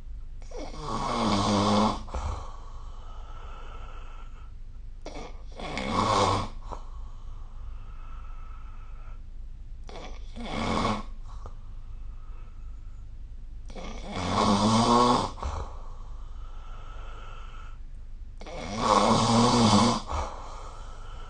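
A sleeping person snoring, five snores in a regular rhythm, one every four to five seconds, each lasting a second or two.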